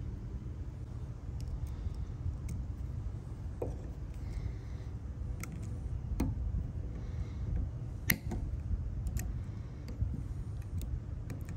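Small scattered metal clicks and ticks of a steel cotter pin being pushed through a castle nut and bent over with needle-nose pliers, the sharpest about eight seconds in, over a steady low background rumble.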